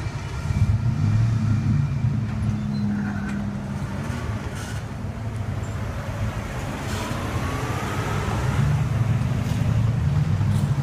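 Steady low rumble of road vehicles and the departing light-rail train, with a faint rising whine about seven seconds in.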